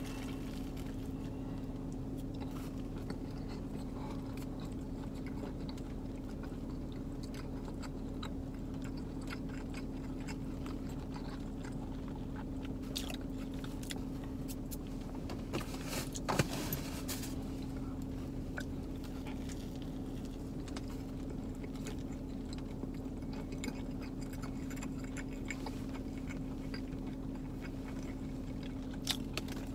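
A person eating a panini: close-up chewing and biting, with a few louder crackles about halfway through and again near the end, over a steady low hum.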